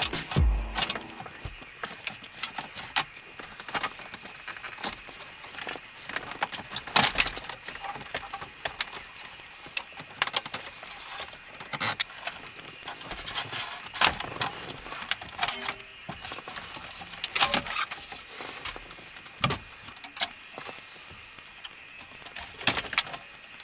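Irregular clicks, taps and jingling rattles of small metal and plastic parts being handled and fitted by hand, like a jangle of keys.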